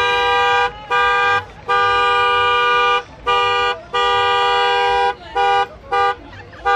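A two-tone vehicle horn honked over and over, about eight blasts of one steady chord, some short and some over a second long.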